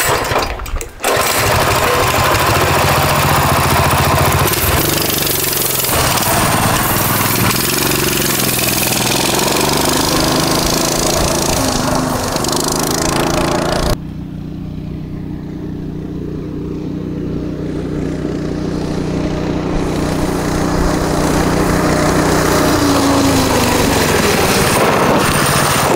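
A gas mini bike's small engine is pull-started with its recoil cord and catches about a second in, then runs steadily at high revs with its speed governor still fitted. About halfway through the sound drops suddenly and turns distant, then grows louder again as the bike comes back towards the listener, its pitch shifting near the end.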